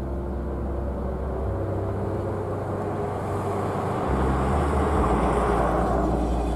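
Street traffic: a passing vehicle grows louder about halfway through and fades away near the end, over a low steady hum.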